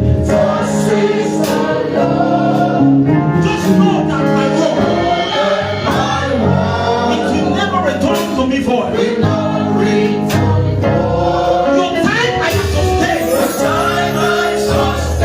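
Gospel song with a choir singing over a band with a steady beat.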